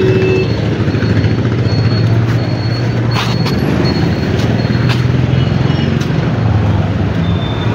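Busy street traffic: a steady engine drone from motorcycles and cars, with a few short sharp clicks.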